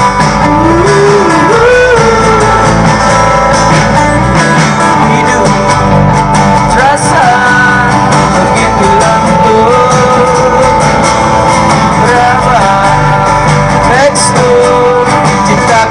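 Live band performance: a singer's melody over strummed and plucked guitars and a full band, loud and continuous.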